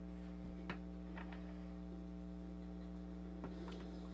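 Steady low electrical hum with a few small clicks and taps of metal hardware being handled while wires are fastened to a terminal strip, the sharpest click a little under a second in.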